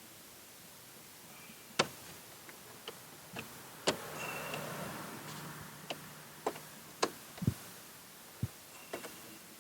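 Scattered sharp plastic clicks and snaps as the interior light lens in a 2019 Dodge Charger's headliner is pried at by hand. A short stretch of rustling comes about four seconds in.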